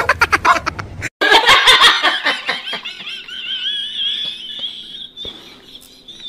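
A woman laughing in quick pulses, which about two seconds later turn into a long, high, wavering squeal that fades toward the end.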